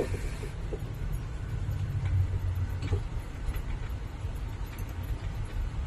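Steady low engine rumble of a truck heard from inside its cab in slow traffic, with a few faint, irregular ticks.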